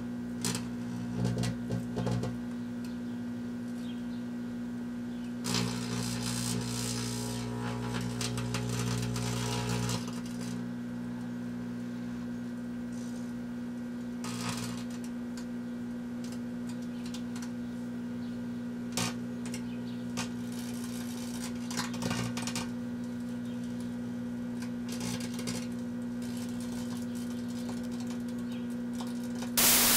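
Kenmore microwave oven running with a steady hum while the remains of a firework tank burn inside it, with scattered crackles and stretches of fizzing. A loud burst of hiss cuts in near the end.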